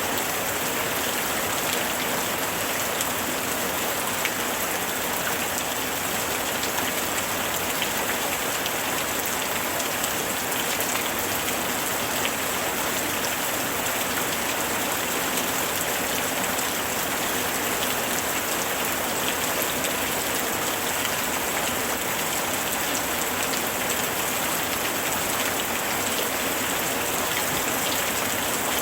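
Steady heavy rain falling, an even hiss of many drops striking a surface, with fine individual drop ticks throughout.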